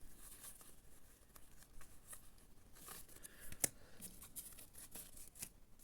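Faint handling of Yu-Gi-Oh trading cards: soft rustling and light clicks of cards being moved and laid down, with one sharper tap about three and a half seconds in.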